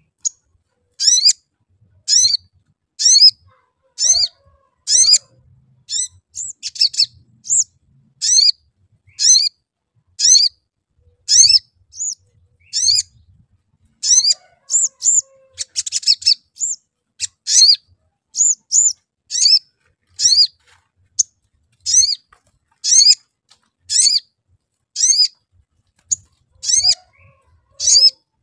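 Male olive-backed sunbird calling: sharp, high 'cuit' chirps, each a quick sweep in pitch, repeated about once a second. Around the middle the calls come faster, with a brief harsh chatter.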